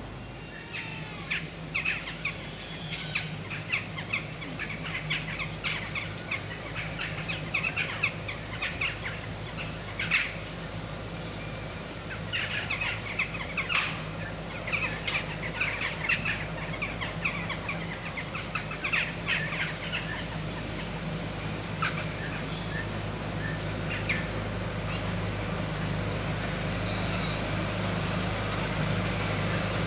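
Birds chirping and calling in short bursts, over the steady low hum of a small narrow-gauge diesel locomotive that grows louder toward the end as it approaches.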